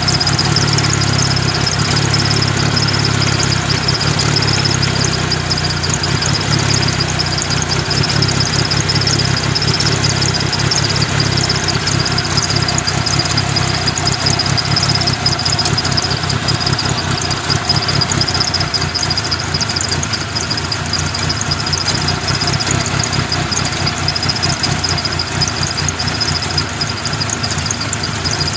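1997 Mitsubishi Eclipse RS four-cylinder engine idling roughly and unevenly, a running fault whose cause the owner does not know.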